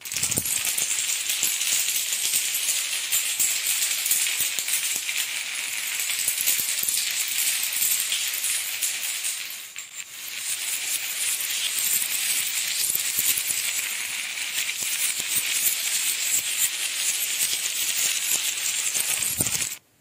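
A long spiral of stacked dominoes toppling on a tile floor: a dense, continuous clatter of many small blocks clicking against each other and the floor. The clatter breaks off briefly about halfway through, runs on again, and stops abruptly just before the end.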